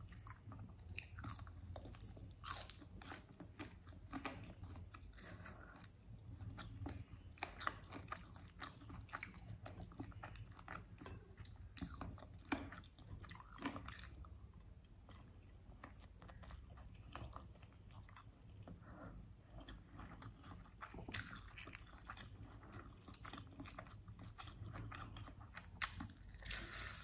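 Close-up chewing and mouth sounds of a person eating rice and chicken wings with sambal, with frequent short crunches and clicks. There is a sharper bite into a chicken wing near the end.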